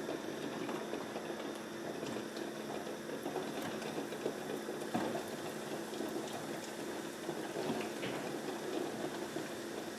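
Sausage-and-breadcrumb-coated Scotch egg deep-frying in oil at about 150 to 160 degrees: a steady sizzle with small scattered pops.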